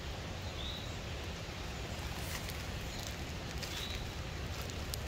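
Outdoor woodland ambience: a steady low rumble of wind, a few faint clicks, and two short faint high bird chirps, about a second in and again near four seconds.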